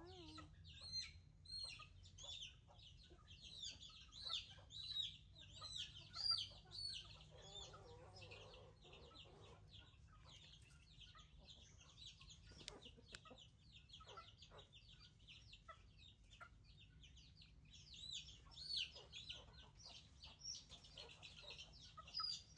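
Faint, quick, high peeping chirps from chickens, coming in busy runs, most in the first seven seconds and again near the end.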